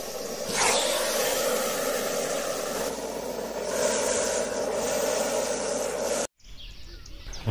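Rattlesnake shaking its tail rattle: a steady buzz that stops abruptly about six seconds in.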